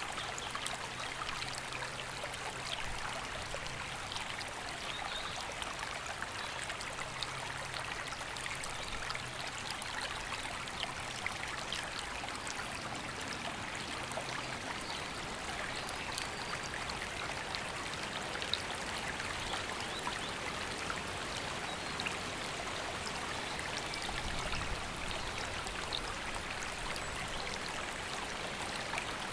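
River water running steadily over rocks, an even rushing and babbling.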